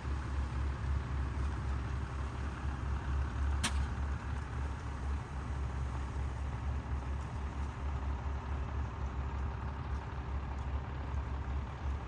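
A motor-driven machine running steadily with a low rumble. There is one sharp click about three and a half seconds in.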